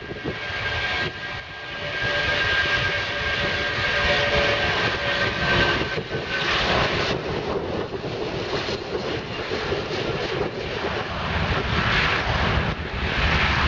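Boeing 757 airliner's twin jet engines running as it rolls along the runway: a steady jet noise carrying a high whine that fades about six seconds in.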